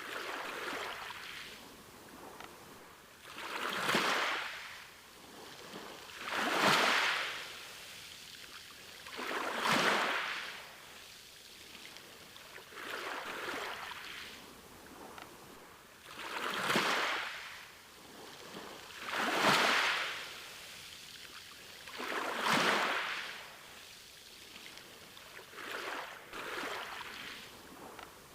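Ocean waves breaking on a beach, one about every three seconds, each swelling into a rushing wash and then falling away.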